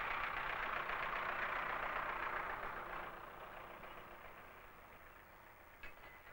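Tractor engine running steadily, then fading away over the second half as it tows a section of temporary railway track off on wheels. A short knock near the end.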